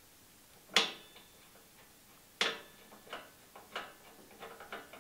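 Small metal clinks and ticks as the bottom cap-head bolt is turned out with a T-handle hex key and a kart's rear brake caliper is worked free of the chassis. Two sharp clinks come about a second and two and a half seconds in, then a run of lighter ticks.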